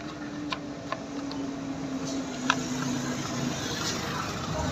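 A few light, irregular clicks of plastic lead-acid battery cell caps being handled and unscrewed, against a steady low background hum.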